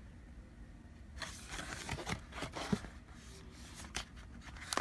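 Cardboard and plastic product packaging being handled and opened. Scattered rustles, scrapes and light clicks start about a second in.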